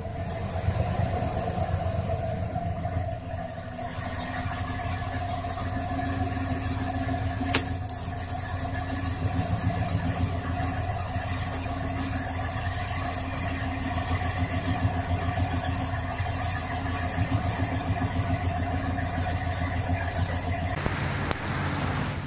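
1990 Ford F-150's engine idling steadily, a low rhythmic pulse under a steady whining tone, with one sharp click about a third of the way in. The sound is coloured by echoes off an open garage in front of the truck.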